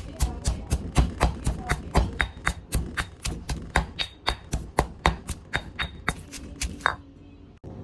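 Fast, regular strikes of kitchen preparation, likely chilies and garlic being broken down for a dipping sauce, about four a second, each with a dull thud, stopping abruptly near the end.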